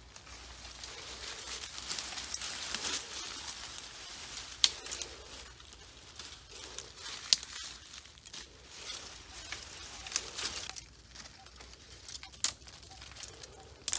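Leaves rustling and thin branches cracking as someone pushes through and pulls at dense brush, with a handful of sharp snaps spread through.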